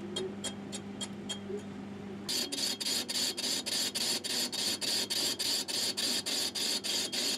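Myford ML7 lathe turning the rim of a cast iron flywheel casting, the tool ticking regularly about four times a second over the hum of the lathe. This is an interrupted cut: the tool only bites on the high spots of the uneven rough casting. After about two seconds the ticks turn louder and sharper, with a hiss behind them.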